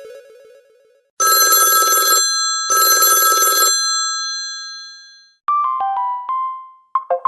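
Samsung GT-S3350 (Chat 335) mobile phone ringtones: a telephone-bell style ring sounds twice, about a second each with a short gap, and dies away slowly. Then a few short electronic notes follow near the end.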